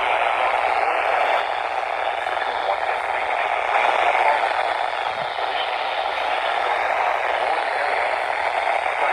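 Steady static hiss from a NOAA Weather Radio receiver, with no voice or alert tone on the channel.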